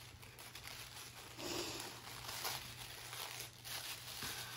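Gift wrapping paper crinkling and rustling as fingers pick at it. The sound is faint and comes in irregular swells, with a little tearing.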